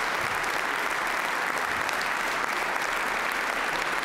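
Audience applauding: steady, even clapping from many hands.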